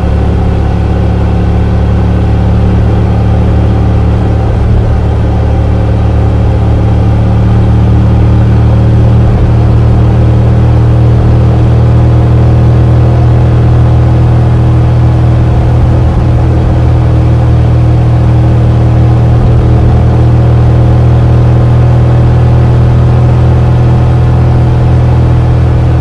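Motorcycle engine breathing through an Akrapovic header and the stock muffler, heard from an onboard camera while cruising at a near-constant speed. It gives a steady engine note that grows slightly louder about eight seconds in.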